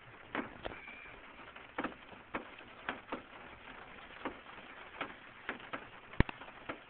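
Faint, scattered taps and clicks at irregular intervals in a quiet car cabin, with one sharper click near the end.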